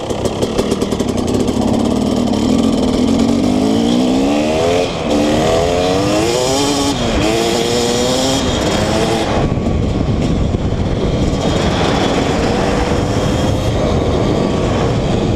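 KTM SX 125 single-cylinder two-stroke dirt-bike engine pulled hard, its pitch climbing through several upshifts with a brief drop at each shift, then running on at a steadier high speed in the second half.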